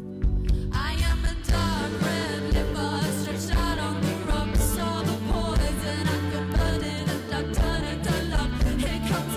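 Live rock band playing, with drums, bass, guitars and keys under a woman's lead vocal. The voice slides up into the melody about a second in.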